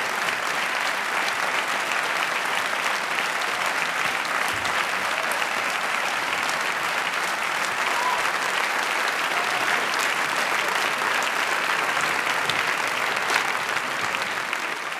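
Theatre audience applauding: a dense, steady sound of many hands clapping, easing off slightly near the end.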